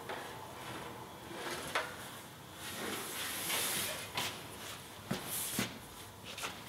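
Thin sheet of .050 3003 aluminum being handled and flexed at a bead roller: a few light knocks and clicks, with a scraping hiss from about three to four seconds in and again briefly later.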